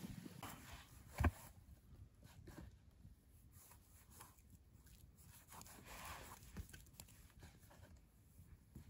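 Soft, quiet handling sounds of a basting brush being dipped into a plastic tub of marinade and spread over a whole raw chicken, with scattered small clicks and one sharper click about a second in.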